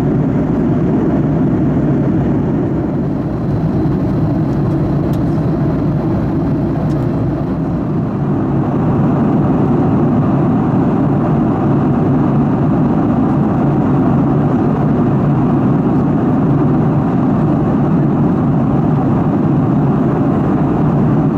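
Steady cabin noise inside a Boeing 737 MAX 8 airliner: an even rush of air and engine noise, growing a little louder about a third of the way in.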